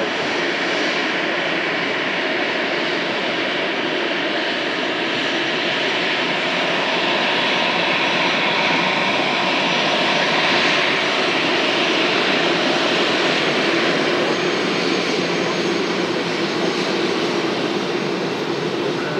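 Airbus A321-211's CFM56 turbofan engines running at low taxi power as the airliner rolls past, a steady jet noise with a faint high whine that swells slightly about halfway through.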